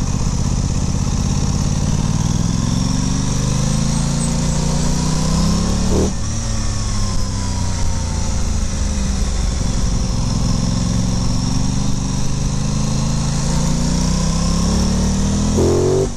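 Aprilia Tuono 660's parallel-twin engine pulling up through the revs under acceleration. The pitch climbs, drops sharply with an upshift about six seconds in, then climbs again to another upshift near the end.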